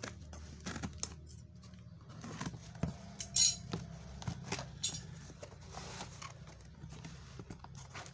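Cardboard parcel being cut open with scissors and its flaps pulled back: scattered crinkles, scrapes and taps of cardboard and packing tape, with one short, loud tearing sound about three and a half seconds in.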